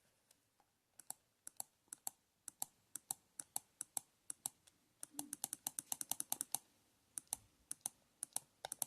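Typing on a computer keyboard: a string of separate key clicks at an uneven pace, with a quick burst of keystrokes about five seconds in.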